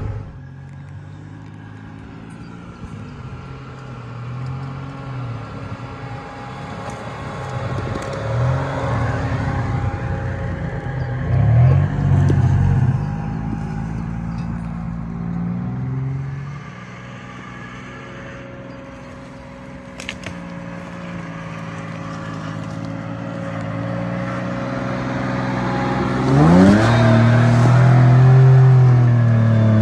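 Pickup truck's engine revving as it climbs a sandy off-road slope, the revs rising and falling in surges, with a strong surge about 11 seconds in and the loudest, longest one near the end as the wheels spin and throw sand.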